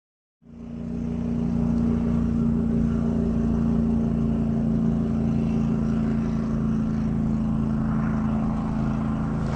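Boat motor running steadily at constant speed, cutting in suddenly about half a second in.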